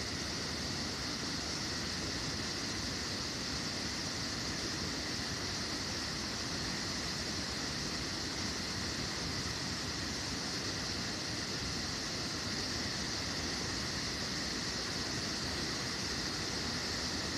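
Steady, unchanging outdoor background noise: a constant high hiss over a low rumble, with no distinct events.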